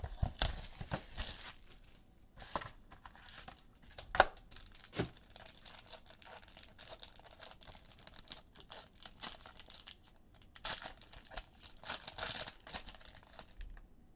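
Plastic wrapping being torn and crinkled as a trading-card box and its packs are opened, in a series of rustles, with a sharp knock about four seconds in.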